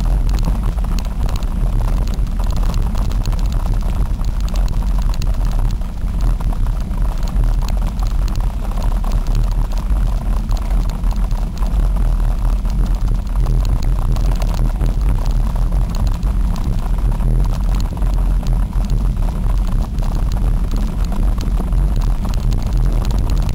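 Steady wind buffeting and low rumble on a moving camera's microphone while riding along a dirt fire trail.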